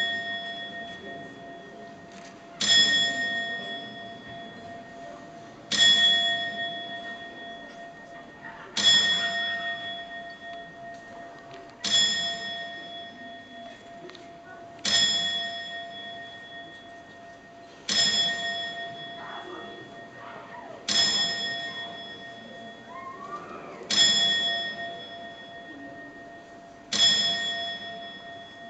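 The hour bell of the Strasbourg astronomical clock, struck by the automaton of Death with a bone. It rings one clear stroke about every three seconds, nine strokes here, and each stroke rings on and fades slowly into the next.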